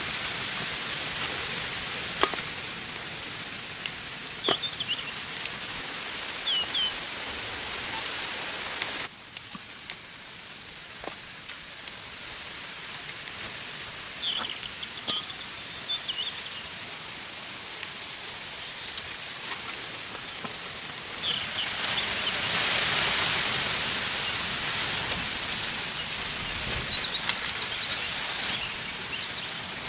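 Fresh cluster beans being snapped into pieces by hand, with occasional sharp snapping clicks, over a steady outdoor hiss. Small birds chirp briefly now and then.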